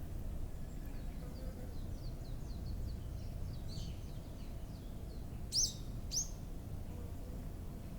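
Wild birds calling over a steady low rumble of background noise: a run of faint, quick chirps, then two loud, short, upward-sweeping calls about half a second apart a little past the middle.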